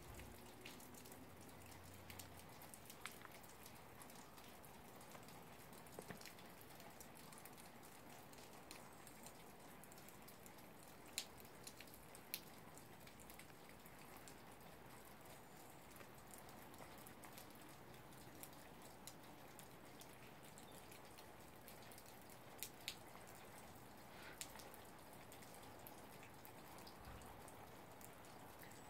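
Near silence: a faint steady hiss with a few scattered soft clicks.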